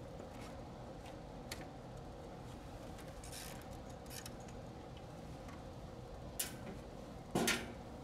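A few small clicks and knocks of a screwdriver and hands handling wiring and connectors in an air conditioner's electrical control box, the loudest two near the end, over a steady low hum.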